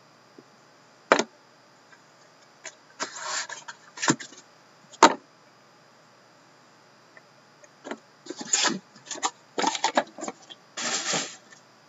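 A 2013-14 Upper Deck The Cup hockey card box being opened and unpacked by hand: a few sharp knocks and clicks of the box and its lid, with short scraping and sliding as the cards are drawn out of the box's insert and stacked.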